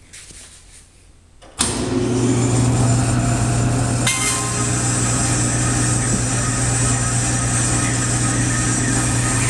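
DoALL vertical bandsaw switched on about one and a half seconds in, then running steadily with a low hum, its blade running free with nothing being cut yet. About four seconds in there is a brief contact sound as a stick is held to the moving blade.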